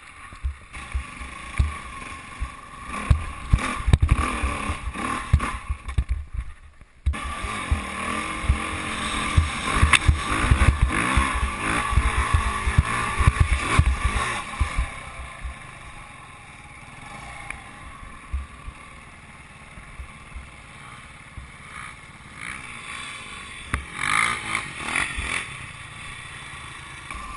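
Dirt bike engines revving and running under load, with uneven thumps and low rumble on the camera's microphone. The sound changes abruptly about seven seconds in, then settles into a steadier engine drone with bursts of revving near the end.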